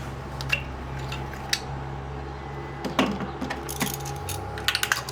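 Light metallic clinks and knocks of small metal parts and tools being handled, a few scattered single ones and a quick cluster near the end, over a steady low hum.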